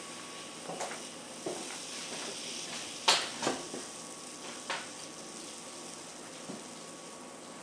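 Root beer fizzing steadily in an open can as foam rises out of the opening: the carbon dioxide rushing out as a Xanax tablet dissolves in the soda. A few short knocks and clicks sound over the fizz, the loudest about three seconds in.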